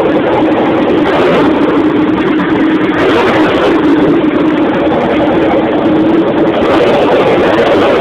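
Kawasaki Zephyr 1100's air-cooled inline-four idling steadily through a new hand-bent exhaust with an L-type silencer.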